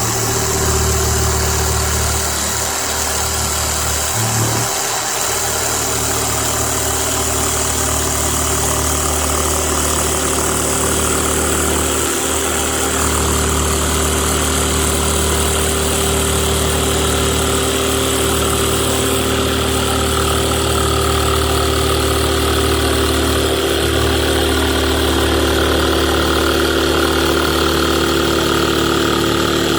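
Electric jigsaw running steadily as it cuts through a panel, with a constant motor whine and blade buzz and a couple of brief dips early on.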